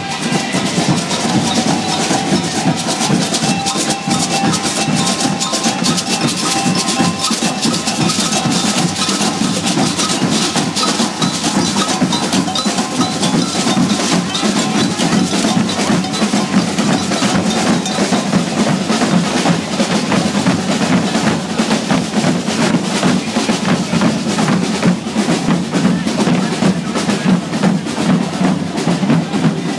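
Street percussion band of marching drummers playing a fast, driving rhythm of rapid drum strikes that keeps on without a break.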